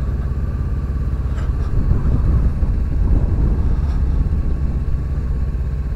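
Motorcycle engine running steadily at low speed, a deep even rumble, with some wind on the microphone.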